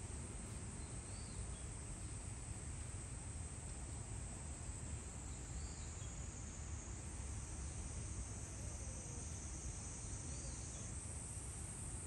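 Steady hiss and low rumble of room audio picked up by a monitoring camera, with three faint short chirps spaced about four and a half seconds apart.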